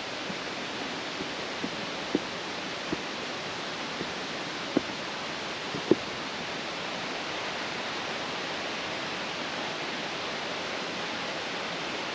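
A breeze blowing through the forest leaves: a steady, even rushing hiss, with a few faint taps about two to six seconds in.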